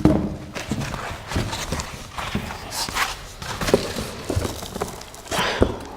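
Unboxing handling noise: irregular knocks and thumps of parts and packing material being pulled from a tightly packed cardboard box, with rustling and scraping between them.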